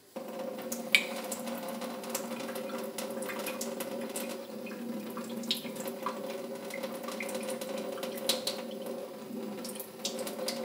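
Kitchen mixer tap turned on to a very slow stream that starts suddenly and runs steadily into a stainless steel sink. Occasional small splashes and ticks come through as a rubber chest strap's sensors are held under the stream to wet them.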